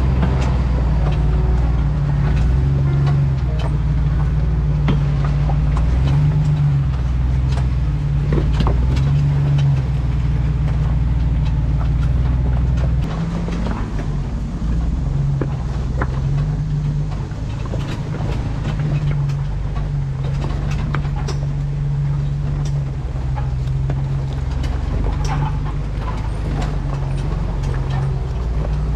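A Jeep's engine running at low revs while it drives an off-road trail, with scattered clicks and knocks over the steady drone; it gets somewhat quieter about halfway through.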